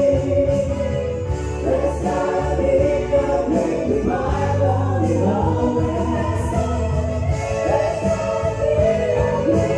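A small mixed group of men and women singing a praise song together through microphones, accompanied by an electronic keyboard with steady sustained bass notes, all amplified through a speaker.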